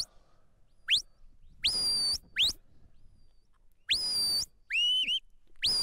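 Shepherd's whistle commands to a working border collie: about six sharp notes, some quick upward sweeps and some sweeping up into a held high note, with short gaps between them. These are the handler's directional flank and stop signals steering the dog round the sheep.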